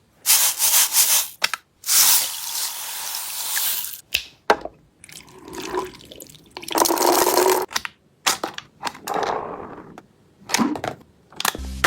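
A toy gel blaster with a smoke-effect silencer being handled and worked: a string of sharp clicks and several short bursts of hiss, about a second long each.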